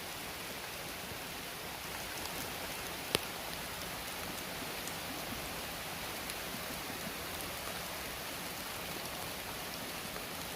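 Light rain falling steadily on an areca palm grove, with one sharp drip-like tick about three seconds in.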